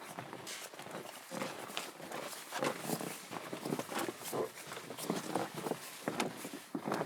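Footsteps crunching through snow in uneven steps, louder from about two and a half seconds in.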